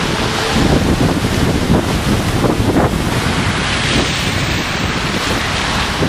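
Cars and an SUV driving through deep floodwater, their tyres throwing up heavy spray: a steady rush of splashing water over a low rumble.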